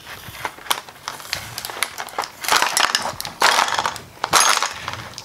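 Clear plastic blister packaging crackling and crinkling, with irregular sharp clicks and snaps, as small parts of a miniature replica gun kit are pried out of their moulded tray.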